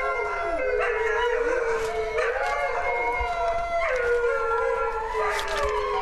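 Dogs howling: long drawn-out howls that overlap one another and slide slowly down in pitch.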